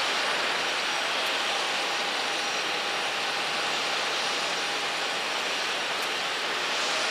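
Airbus A380's four Rolls-Royce Trent 900 jet engines running at a distance as the airliner moves along the runway: a steady, even hiss with a faint steady whine.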